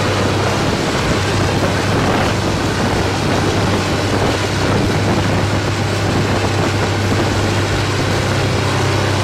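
DuraTech HD-10 grinder running under load, its hammer mill spinning at about 2,100 rpm as it grinds logs and brush. The sound is steady and loud, with a strong low hum.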